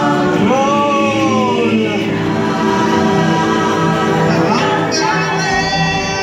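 Choral music playing over the boat ride's speakers: a choir sings held chords. About half a second in, one voice swoops up and slowly slides down.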